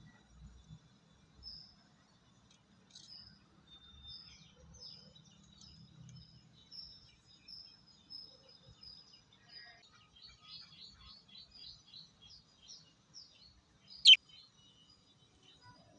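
Lovebirds chirping in short, high twitters, quickening into a rapid run of chirps later on, with one loud, sharp shriek near the end.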